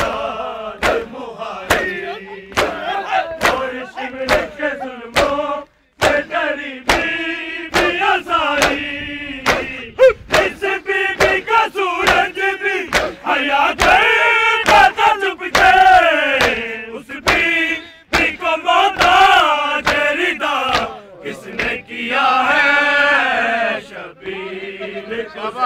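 A crowd of men chanting a noha, an Urdu mourning lament, in unison, with the steady slaps of matam, open hands striking bare chests, about two a second in time with the chant. The sound cuts out briefly about six seconds in.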